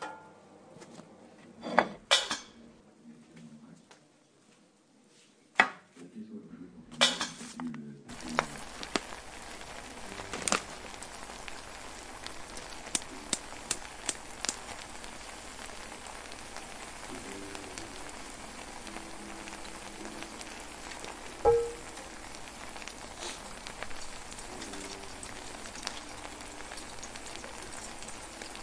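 Mutton masala sizzling and bubbling in a steel pot on the stove: a steady hiss with scattered small pops that starts abruptly about eight seconds in. Before it come a few sharp clinks of a metal utensil against the pot.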